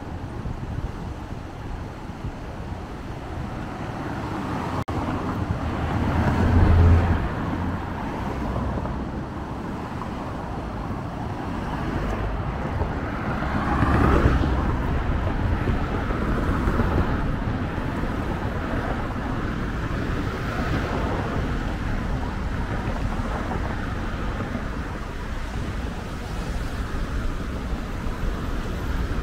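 Cars passing on the road alongside over a steady rush of road noise, with two louder passes about 7 and 14 seconds in.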